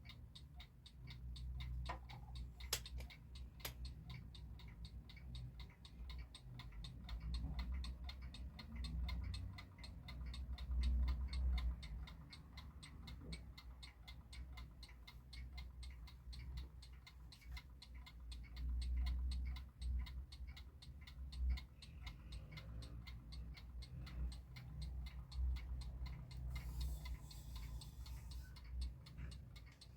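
Mechanical wind-up alarm clock made in West Germany ticking in a fast, even rhythm over a low background rumble.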